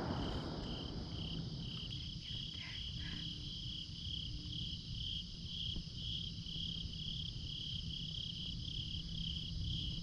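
Insects chirping: a steady pulsing trill, about two to three pulses a second, over a constant higher-pitched drone.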